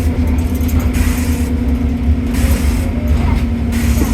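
Stagecoach London bus running, heard from inside: a heavy low engine and road rumble with a steady hum over it, and hiss that comes and goes.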